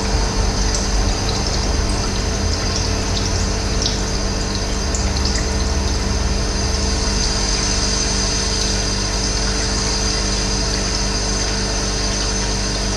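Running water rushing steadily, with a few brief high bird chirps here and there.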